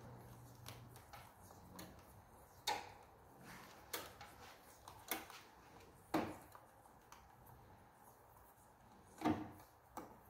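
Irregular small clicks and knocks, about eight in all, as wires are handled and pushed into place at the connection point of a wall-mounted split air conditioner's indoor unit.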